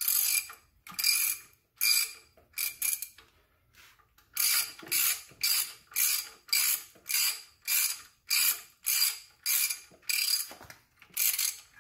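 Ratchet wrench clicking in repeated short strokes as it turns the screw of a bearing-press tool, drawing a brass spigot (pilot) bearing into the crankshaft. A few irregular strokes, a brief pause about four seconds in, then steady strokes about twice a second while the bearing slides in easily.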